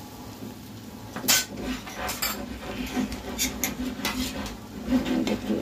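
Metal kitchen utensils and dishes clinking and knocking against each other, about seven sharp clinks spread over a few seconds.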